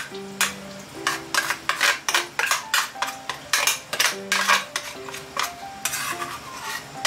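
Grated jinenjo (Japanese mountain yam) being ground in a suribachi mortar with a pestle: rhythmic scraping strokes, about three a second.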